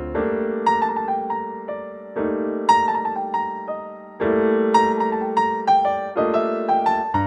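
Background piano music: a slow melody of single struck notes over held chords, each note fading after it is struck.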